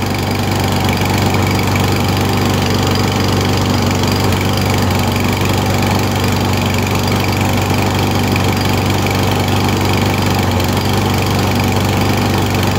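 Husqvarna lawn mower's small single-cylinder OHV engine running steadily while it warms up, its slow-acting auto choke not yet fully open.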